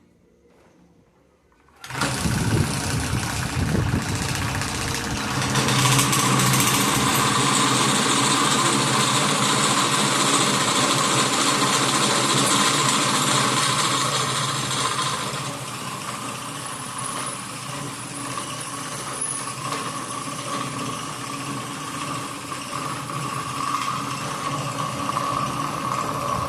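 Homemade bench drill press driven by a washing-machine motor, switching on about two seconds in. A larger drill bit then cuts to enlarge an existing hole, adding a louder, brighter cutting noise for about ten seconds, after which the motor runs on more quietly.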